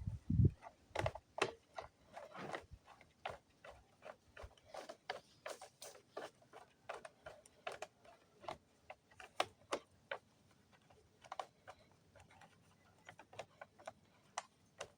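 Irregular light clicks, taps and clinks of hand tools and small parts being handled during a repair on a small-engine machine, with a couple of duller knocks right at the start.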